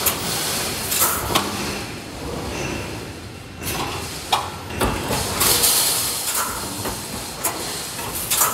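BRC wire mesh welding machine running: a constant mechanical din with irregular sharp knocks and short rushes of high-pitched hissing as it welds and advances the heavy steel mesh.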